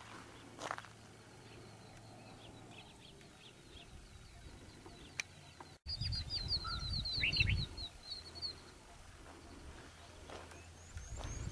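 A small bird singing a fast, high trill of rapidly repeated chirps, loudest a little past halfway, with a low rumble on the microphone at the same time.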